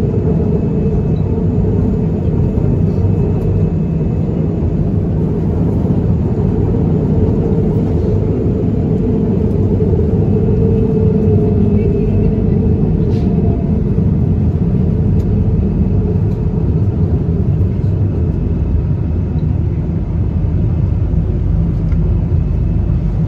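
Onboard a KTM Class 83 electric multiple unit running along the line: a loud, steady rumble of wheels and running gear, with a faint mid-pitched tone that dips slightly about halfway through.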